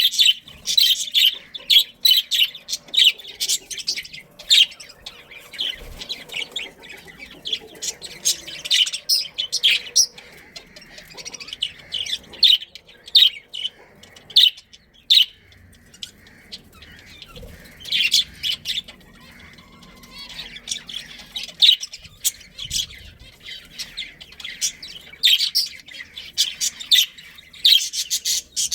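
Budgerigars chattering: a fast, busy run of short high chirps and squawks that thins out briefly about two-thirds of the way through, then picks up again.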